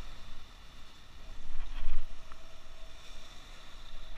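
Sea waves surging and breaking against a rocky shore, with wind buffeting the microphone; the rush swells up about one and a half to two seconds in.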